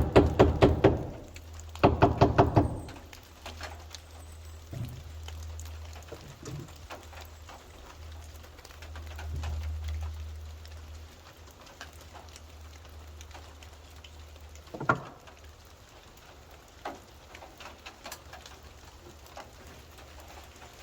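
Two short bursts of rapid knocking, about eight knocks a second, at the start and again about two seconds in, then scattered light taps and one louder knock later, over a steady low hum.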